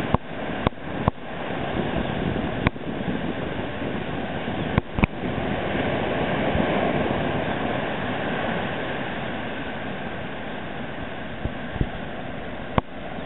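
Surf breaking and washing up on a sandy beach: a steady rushing noise that swells a little about halfway through, with a few sharp clicks on top.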